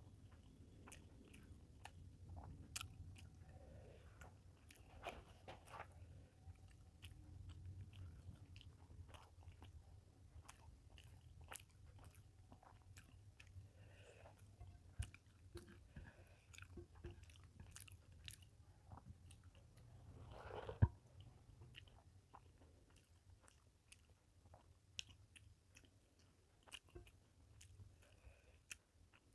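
Faint close-up chewing and mouth smacks of a person eating rice and fish curry, with scattered small clicks. One sharper, louder smack comes about two-thirds of the way through.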